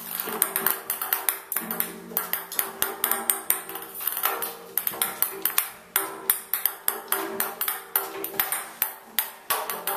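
A small toy ball clicking and clattering against the hard surface of an empty bathtub as a kitten bats and chases it: many sharp, irregular clicks, each with a brief ring.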